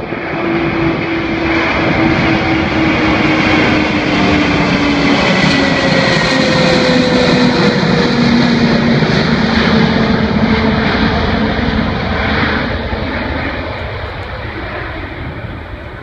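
Airplane passing close by: its engine noise swells, holds, then fades over the last few seconds, with engine tones sliding down in pitch as it goes past.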